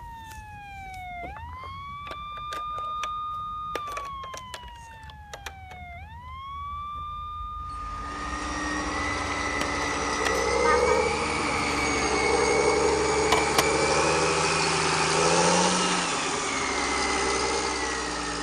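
Electronic police siren wailing in a repeating pattern: a held tone slides slowly down and then snaps back up, twice, with light plastic clicks of toy figures being handled. About eight seconds in, the siren gives way to a louder, steady vehicle engine sound.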